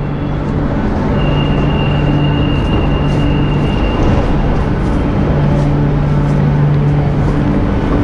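Metro station ambience: a loud, steady rumble with a low hum that comes and goes, crowd footsteps, and a thin high tone held for about three seconds starting a second in.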